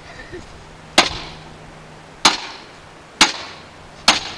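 A baseball bat smashing into the wreckage of a computer, four sharp cracking blows about a second apart, each with a short ringing tail.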